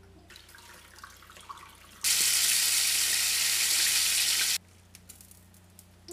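Food frying in a frying pan, a loud steady sizzle that starts suddenly about two seconds in and cuts off about two and a half seconds later.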